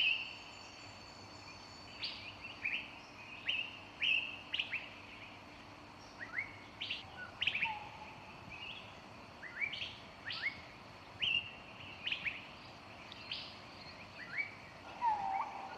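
Small birds chirping: short, sharp upward-sweeping chirps, several every second in an irregular pattern, with the occasional brief lower whistled note.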